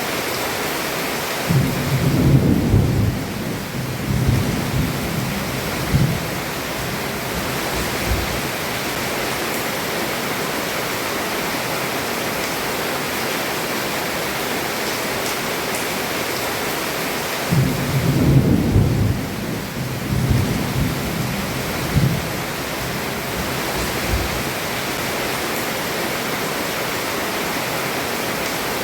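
Heavy rain falling steadily on a roof. Thunder rumbles low twice, a couple of seconds in and again about eighteen seconds in, each roll lasting about four seconds with a few sharper cracks.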